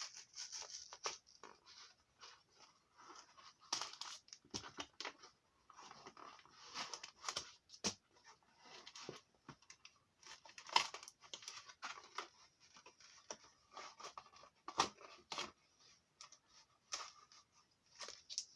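Cardboard and plastic blister packaging of a Pokémon card pack being opened by hand: irregular bursts of rustling, tearing and small clicks.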